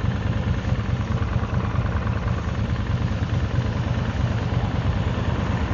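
Kawasaki VN 1500 Drifter's V-twin engine running steadily while riding, its low pulsing mixed with a steady rushing noise.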